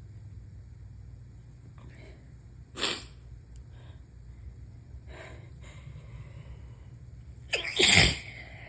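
A person sneezing during a sneezing fit from a head cold: a short sharp burst about three seconds in and a few faint breaths, then a loud full sneeze with a falling voiced cry near the end.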